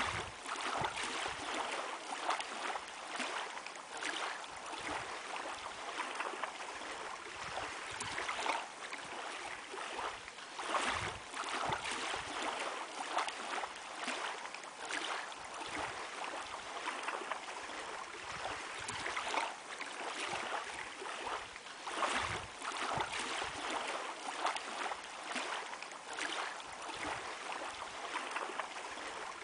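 Small waves lapping and washing at the water's edge, a steady wash of water with irregular small surges about every second.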